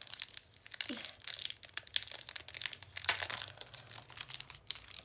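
Crinkling and rustling of paper and packaging being handled during an unboxing, a run of irregular crackles with a sharper one about three seconds in.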